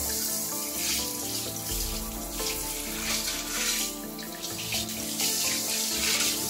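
Water from a hand-held shower head spraying into a ceramic bathroom sink to rinse it, a running hiss that swells and eases. Background music plays under it.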